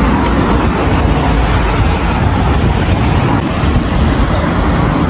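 A car driving on the road: a steady rumble of road and engine noise.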